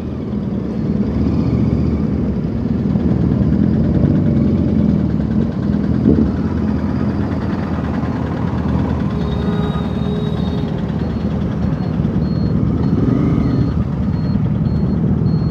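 Motorcycle engine running steadily while riding through slow city traffic, mixed with the rush of wind and road noise.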